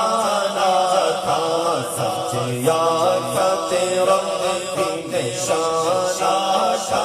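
A man singing a hamd, an Islamic devotional song praising God, into a microphone, drawing out long melodic notes that bend up and down.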